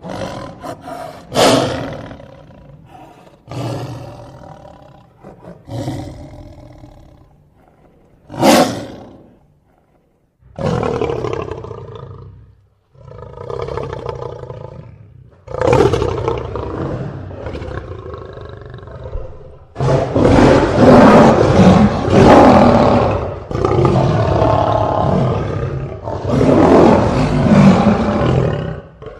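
Lion roaring and growling again and again: separate roars with short gaps, two sharp, loud ones about a second and a half and eight and a half seconds in, then a longer, louder stretch of near-continuous roaring over the last nine seconds or so.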